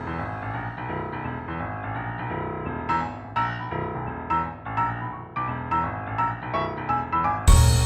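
Background music with a piano or keyboard part: held chords, then single notes struck at an even pace from about three seconds in, and a drum kit coming in just before the end.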